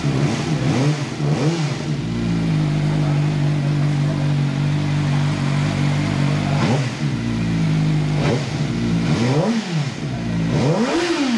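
CF Moto 500 SR Voom motorcycle engine idling, blipped several times: each rev rises quickly in pitch and falls straight back to idle, with a long steady idle in the middle.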